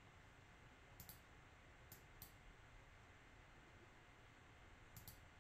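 A few faint computer mouse clicks, in close pairs about a second in and near the end, with two more around two seconds in, as a sell order is placed on a trading platform. Between them there is near-silent room tone.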